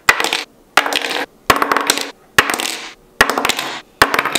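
A fidget spinner flipped onto a wooden table over and over, each landing a sharp knock followed by a short rattling clatter as it tumbles and falls flat, about six in quick succession with brief silences between.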